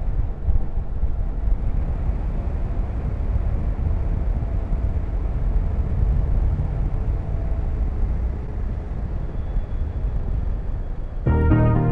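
Wind rushing over the camera microphone with the steady low rumble of a motorcycle under way. Music comes in near the end.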